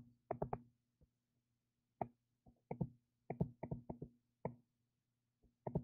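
Plastic stylus tip tapping and scraping on a tablet touchscreen during handwriting: short, light taps in small clusters, over a faint steady low hum.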